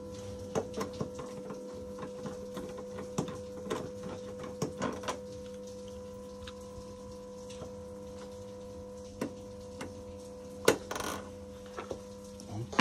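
Hand tools clicking and small metal parts clinking at uneven intervals as bolts are undone in a car's engine bay, with a louder clatter near the end, over a steady hum.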